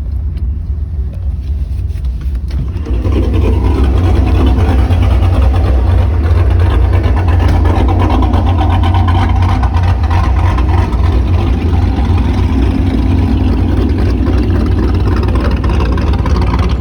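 Modified Pontiac G8 V8 engine and exhaust running with a deep low rumble; about three seconds in it gets louder and fuller under throttle and stays that way.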